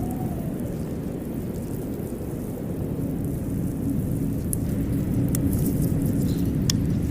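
Deep, steady rumbling noise with a faint wavering tone, and a few sharp crackles in the second half.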